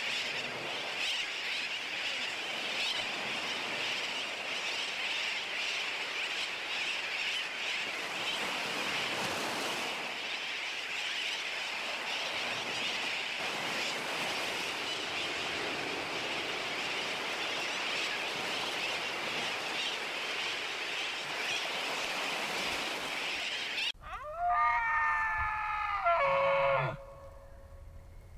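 A tern colony calling: many birds at once in a dense, steady chatter. It cuts off near the end and an elk bellows, one loud call of about three seconds with several pitches sounding together, gliding down toward its close.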